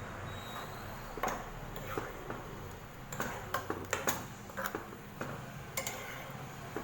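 A spoon tapping and scraping against kitchen vessels as a ground coconut and curd paste is spooned out of a mixer-grinder jar into the pan: a string of irregular light clicks and knocks over a low steady hum.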